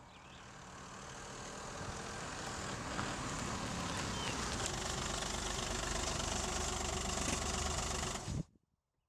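Volkswagen Polo hatchback driving up a dirt track toward the microphone, its engine and tyres growing louder over the first few seconds as it approaches. The sound then holds steady and stops abruptly about eight seconds in.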